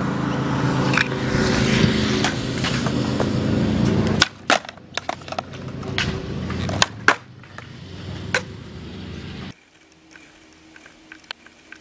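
Skateboard wheels rolling over concrete with a steady rumble, then from about four seconds in a string of sharp clacks and knocks as the board's tail and wheels strike the concrete. Much quieter near the end.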